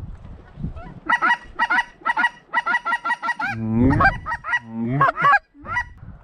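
Geese honking and clucking in quick, overlapping calls that start about a second in, with a longer, lower honk breaking upward near the middle.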